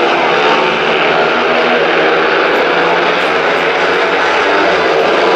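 Several speedway motorcycles, each with a 500 cc single-cylinder methanol engine, running flat out in a race, a loud, steady engine blare.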